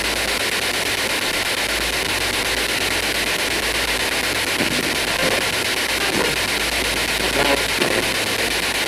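Spirit box (ghost box) radio sweeping through stations: a steady hiss of radio static, with a few faint brief snatches of sound in the second half.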